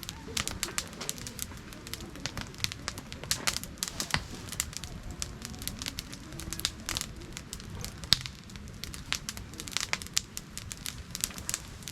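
Campfire crackling, with many irregular sharp pops and snaps; the loudest single pop comes about eight seconds in.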